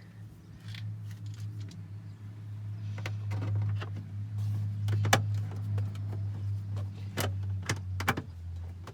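Scattered small clicks and rattles of a screw, tool and plastic trim being handled while a side fastener on a Jeep's steering-column trim is put back, over a steady low hum.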